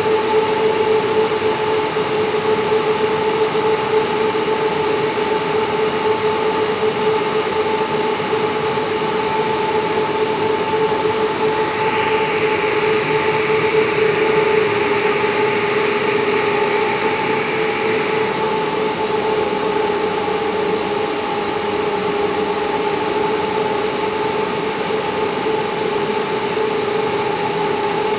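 Steady drone of running industrial machinery: a constant hum carrying a steady tone and a second tone an octave above it. A higher whine joins about twelve seconds in and stops about six seconds later.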